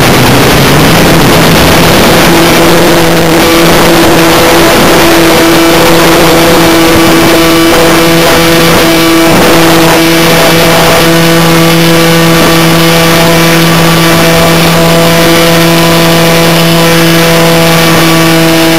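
Skybug RC model plane's motor and propeller heard from a camera mounted under its wing: a steady buzzing tone that rises in pitch about half a second in as the throttle opens, then holds through the flight. Loud rushing airflow over the microphone runs underneath.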